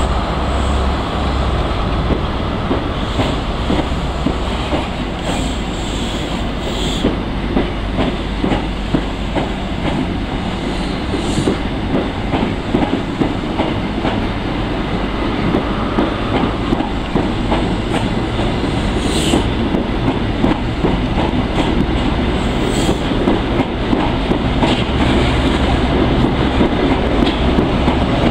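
East Coast HST's Mark 3 coaches rolling past slowly as the train departs: steady low rumble with wheels clicking and knocking over rail joints, and a few brief high squeaks.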